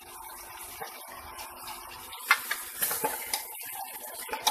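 Beef trotters and onions sizzling in oil in a pressure cooker. From a little after two seconds in, a metal spoon knocks and clinks against the pot several times as stirring begins, with the sharpest knock at the first strike.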